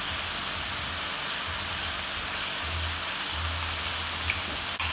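Stir-fry vegetables sizzling in a hot wok: a steady frying hiss.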